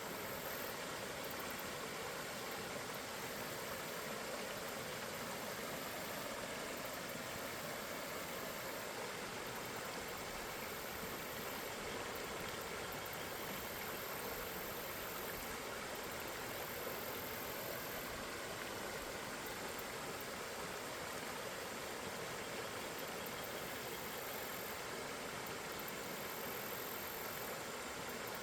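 Steady, continuous sound of river water flowing.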